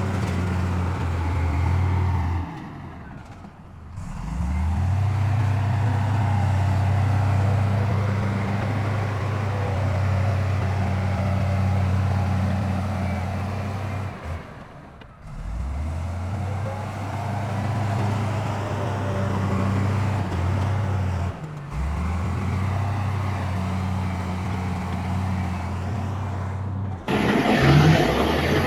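Heavy diesel engine of earthmoving machinery running at a steady low pitch. The sound drops out briefly three times and comes back rising in pitch. Near the end, a louder, rougher engine sound takes over.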